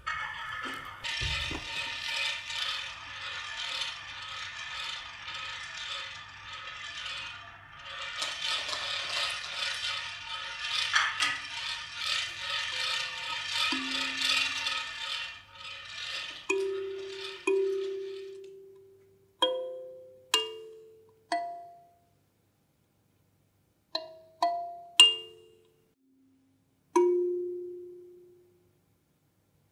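Live experimental music: a dense rattling, clattering texture of small objects, then, about halfway through, a sparse run of single struck notes at several pitches, each ringing out and fading over a second or so.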